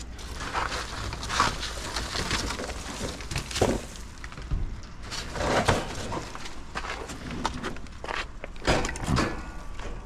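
Footsteps with irregular crunches and knocks of junk being handled, over a low steady rumble.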